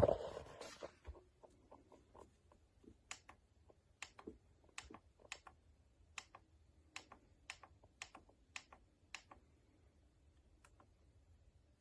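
Faint, evenly paced clicks, about two a second, like the plastic buttons of a digital alarm clock being pressed in turn, after a brief rustle of handling at the start.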